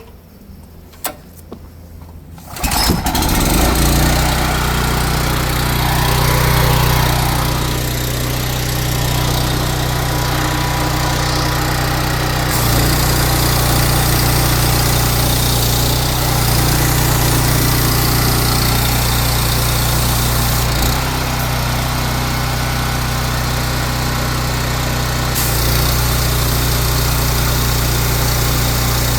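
Pressure washer's small engine starts about two and a half seconds in and then runs steadily under load, pumping water. The high hiss steps up twice, around 12 and 25 seconds in.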